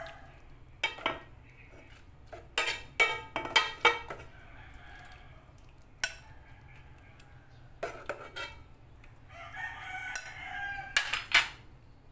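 A metal fork clinking and scraping against an aluminium pot and a ceramic bowl as noodles are scooped out, in a dozen or so sharp clinks with gaps between. A rooster crows once, near the end.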